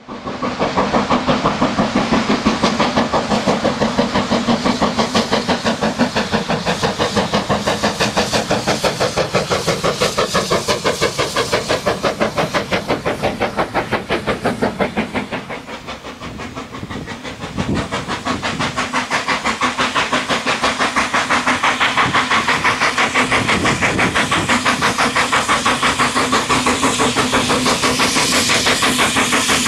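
Steam locomotive working hard, its exhaust beating in a fast, even rhythm of about four beats a second. The beats fade briefly a little past halfway, then return.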